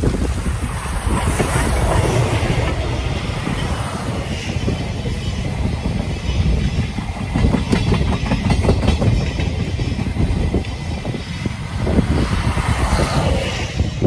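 JNR Class C57 steam locomotive C57 180 passing close by under steam, followed by a rake of 12-series passenger coaches rolling past with their wheels clicking over the rail joints. The rolling noise stays loud until the last coach clears near the end.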